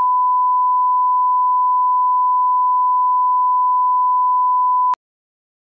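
Steady 1 kHz sine test tone, the line-up tone that accompanies colour bars, cutting off suddenly near the end.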